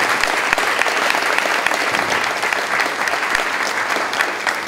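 An audience applauding: many people clapping together in a steady, dense patter.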